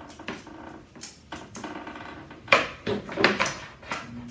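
Handling noise: a run of sharp clicks and clattering knocks as a measuring rule and an appliance power cord are handled on a table, the loudest knock about two and a half seconds in.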